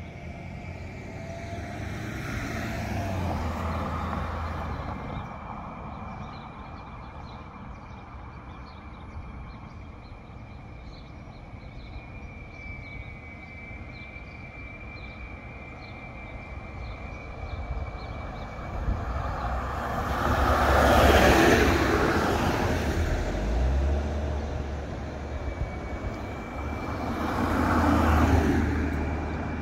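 Cars passing on the road by a railroad crossing: tyre and engine noise swells and fades about three seconds in, again more loudly about twenty seconds in, and once more near the end. A faint steady high tone lies underneath.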